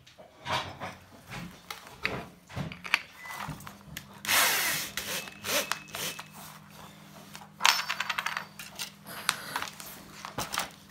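Hands handling a rotary tool and its black plastic cutter attachment: scattered clicks, rattles and a loud scrape a little before the middle, then a quick run of clicks past the middle. A faint steady hum sets in about a third of the way through.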